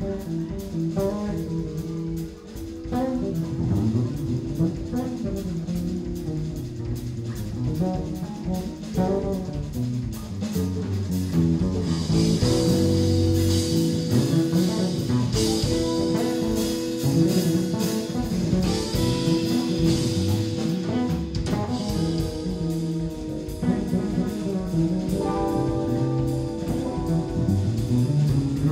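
Live jazz-rock fusion band playing: electric bass line, electric guitar and drum kit with cymbals. About twelve seconds in, long held melody notes come in over the band, played on soprano sax.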